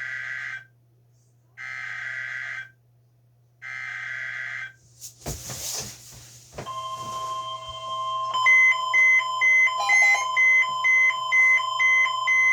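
Weather-radio Emergency Alert System tornado-warning alert through a Jensen JEP-725: three one-second bursts of shrill data tones (the SAME header), a brief crackle of static, then the steady 1050 Hz warning alarm tone. After about eight seconds, rapid beeping at about two a second joins the alarm tone.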